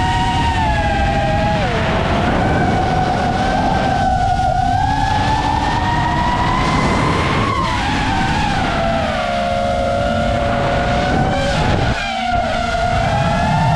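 5-inch FPV racing quadcopter's motors and propellers whining, several close tones sliding up and down together as the throttle changes, over heavy low rushing noise.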